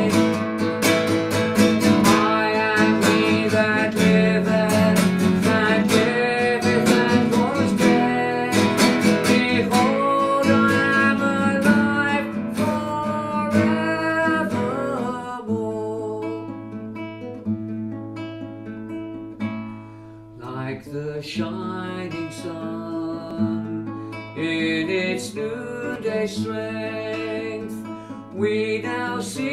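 Recorded worship song accompaniment with strummed acoustic guitar and singing. About halfway through it thins out to a quieter, sparser passage over a steady bass.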